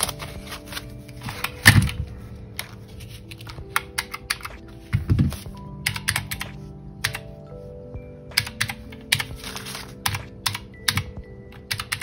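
Clicky round keys of a typewriter-style calculator pressed in quick, irregular runs, with two soft thumps about two and five seconds in. Quiet background music plays underneath.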